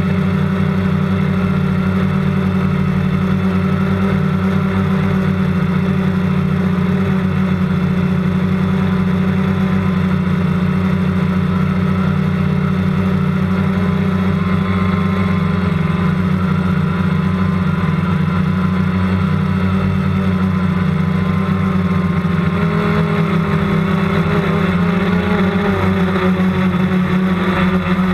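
Motor and propeller of a radio-controlled aircraft running steadily close to its onboard camera, a constant loud low hum whose pitch shifts slightly in the last few seconds.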